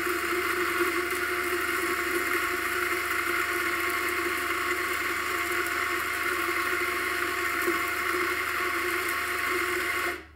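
Electric espresso burr grinder running steadily, grinding coffee beans into a portafilter at a freshly set finer grind; the motor cuts off suddenly near the end.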